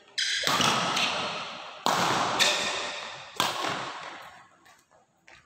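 Badminton rackets striking the shuttlecock during a rally: four sharp hits over about three seconds, each ringing on in the echo of a large hall.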